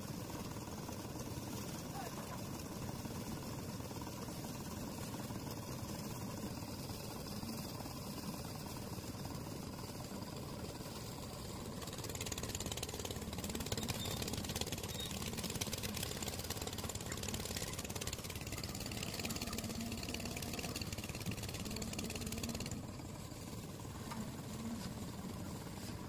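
Engine-driven concrete mixer running steadily as it churns a batch. About halfway in it grows louder with more hiss, and it drops back a little near the end.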